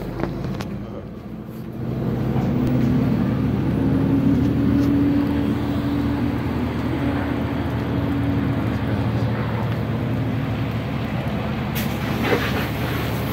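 Fire engine running steadily at a raised engine speed to pump water to the hose line. It is a low, even drone that swells about two seconds in and then holds.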